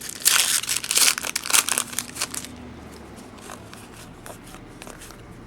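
Foil wrapper of a trading card pack crinkling and tearing as it is opened, loud for about two and a half seconds, then only a few faint handling clicks.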